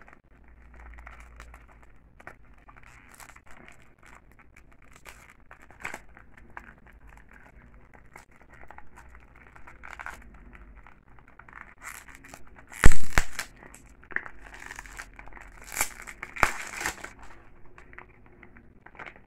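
Clear plastic shrink wrap being peeled and torn off a small cardboard box, crinkling and crackling in short, scattered bursts. The loudest is a sharp crackle about two-thirds of the way through, followed by several more crinkling bursts.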